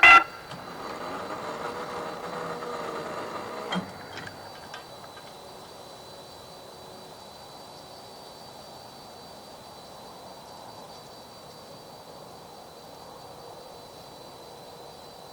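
A train horn blast cuts off right at the start. The train's running noise carries on for about four seconds, ending with a sharp clunk and a few light ticks. After that there is only a faint, steady background with a thin high tone.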